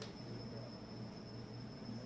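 Room tone: a steady low hum with a faint, steady high-pitched whine, and no distinct sounds.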